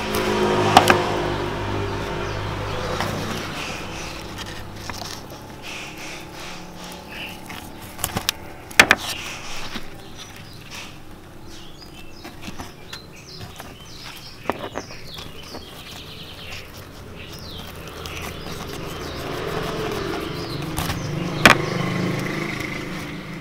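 Soft handling of aglaonema stems and roots on a tray of soil and rice husks, with a few sharp clicks from the knife and stems knocking the tray. A motor vehicle passes at the start and again near the end.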